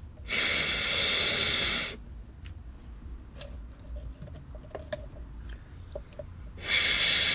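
A man blowing hard by mouth into an outboard motor's gearcase, pushing the old gear oil out of the drain hole faster: two long rushing breaths of about a second and a half each, the second starting near the end. Faint clicks and small knocks in between.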